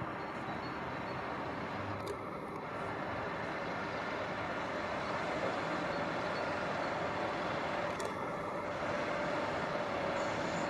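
Truck-mounted hydraulic loader crane working, its drive from the truck's engine giving a steady mechanical drone, with a faint whine that grows stronger in the second half as the grab is raised.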